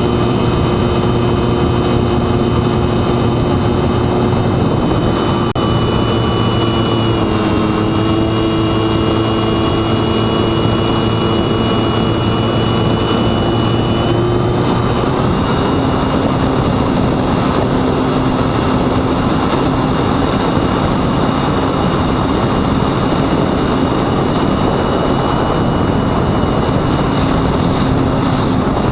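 Sunnysky X2220 brushless motor spinning a 9x7.5 propeller on a mini Talon flying wing, a steady whine over heavy wind rush. Its pitch drops slightly about a quarter of the way in and rises again about halfway, as the throttle changes.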